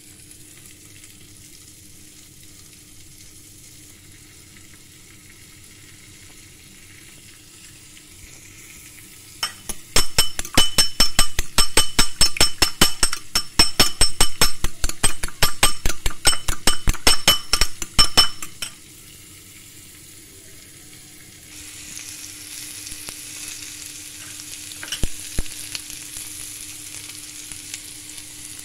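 An egg being beaten with a utensil in a ceramic bowl: about eight seconds of rapid, ringing clicks in the middle, the loudest sound here. Later, a steady sizzle of cabbage and onion frying in a pan, with one sharp click.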